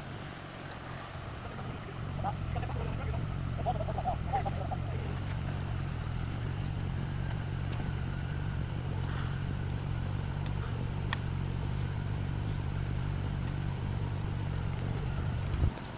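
Vehicle engine running steadily with a low rumble, with a few faint higher squeaks a few seconds in and scattered clicks.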